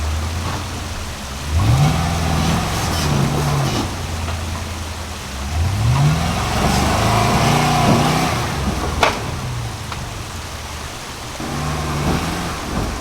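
Off-road vehicle engine rock crawling, revved up three times with its pitch rising each time and easing back between. A single sharp knock comes near the end.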